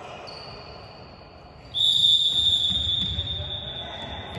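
Referee's whistle blown in one long, steady, high blast starting about two seconds in. It slowly dies away in the echo of a large sports hall. A fainter high whistle tone sounds before it.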